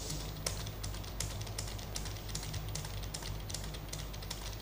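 Typing on a computer keyboard: an uneven run of key clicks, several a second, over a steady low hum.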